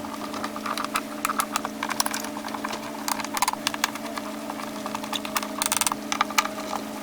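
Quick, irregular small clicks and taps of metal parts and a hand tool as screws are driven to fasten the top cover of a DeWalt DW735 planer, over a steady hum.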